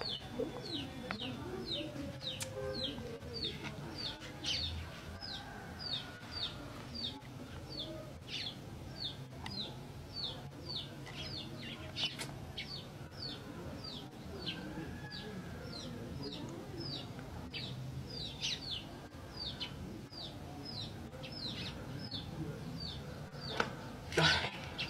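A bird chirping over and over: short falling chirps, about two a second, keeping an even pace. Faint low murmur underneath, and a brief clatter near the end.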